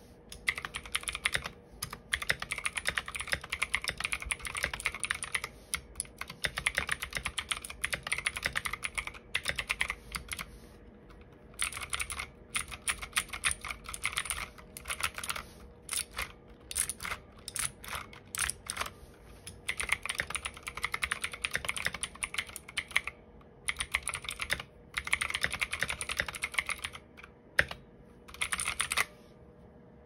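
Typing on a PICTEK 60% wireless mechanical keyboard with clone blue switches: fast runs of loud, clicky keystrokes in bursts with brief pauses, stopping about a second before the end.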